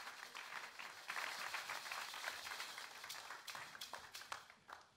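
Congregation applauding: dense clapping that thins out near the end to a few separate claps.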